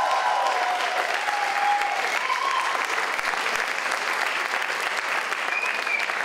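Audience applauding, with a few voices calling out over it in the first couple of seconds.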